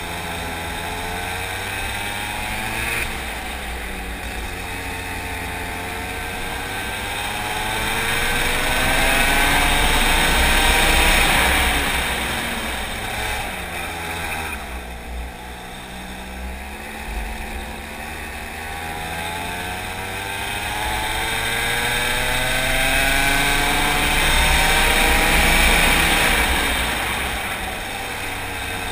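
Go-kart engine at speed, its pitch climbing steadily as the kart accelerates along a straight to a peak about eleven seconds in. It falls away sharply under braking for a corner, then climbs again to a second, similar peak near the end.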